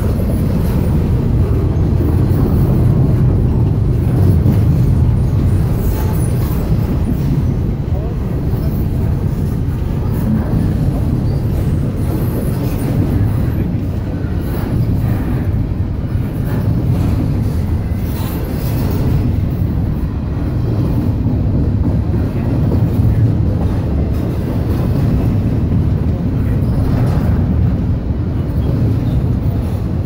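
CSX intermodal freight train's double-stack container cars rolling past at speed, a steady low rumble of wheels on rail.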